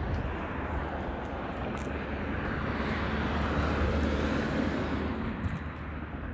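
Steady rushing wind noise on the microphone with a deep rumble, swelling a little in the middle.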